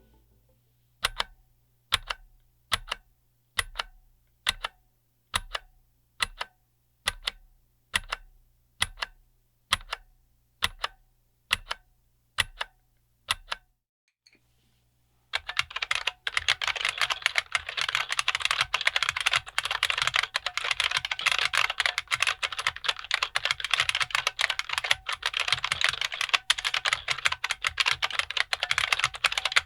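IBM Model M2 buckling spring keyboard: single keys struck one at a time, a little more often than once a second, each a sharp click that fades out. After a short pause, fast continuous typing with dense clicking.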